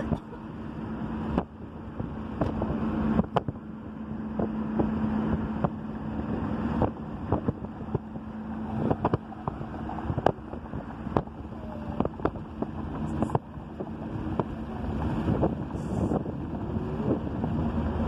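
Car driving with a steady engine drone and road noise, wind buffeting the microphone, and frequent small clicks and knocks.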